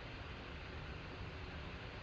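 Steady, faint hiss of background noise with no distinct events.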